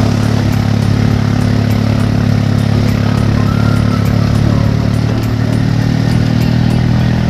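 Small vehicle engine running at a steady speed, heard from inside the passenger cab while riding, over steady road and wind noise.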